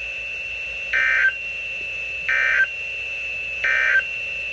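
NOAA Weather Radio's SAME end-of-message data burst: three short bursts of digital screeching tones, each about a third of a second and about a second apart. They mark the end of the severe thunderstorm warning broadcast. A steady high-pitched whine sits under and between the bursts.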